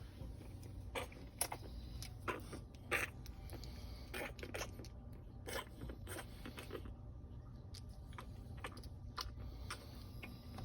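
Nursing puppies suckling, making irregular wet smacking and clicking sounds at an uneven pace.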